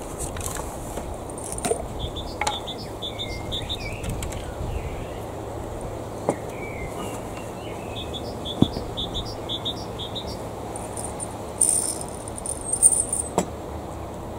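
Gusty wind rumbling on the microphone, with a small bird chirping in quick repeated series twice. A few sharp taps and rustles come from plastic seed trays and pots being handled, the loudest about two-thirds of the way in and a cluster near the end.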